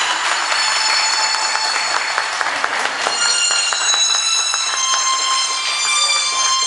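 Several shrill, whistle-like tones held together over one another, with a quick run of sharp claps or clicks about two to three seconds in.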